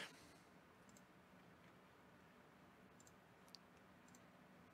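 Near silence with a few faint computer mouse clicks, the clearest about three and a half seconds in, over a faint steady hum.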